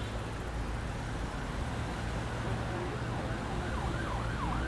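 Outdoor sound from a phone recording: a steady low rumble and noise, with a siren wailing up and down in the last second or so.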